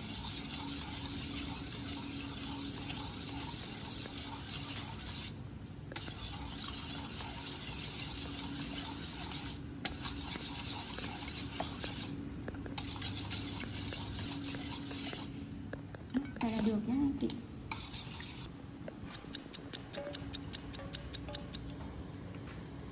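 Wire balloon whisk stirring a thin egg-and-milk flan custard in a stainless steel bowl, the wires scraping steadily against the metal. Near the end comes a quick run of light clicks, about five a second.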